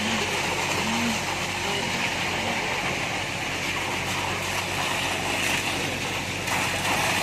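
Concrete pump truck's engine running steadily: a constant low hum under an even hiss.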